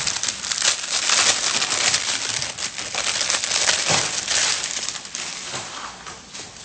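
Packaging being crinkled and rustled as a parcel is opened, dense and crackly, tailing off near the end.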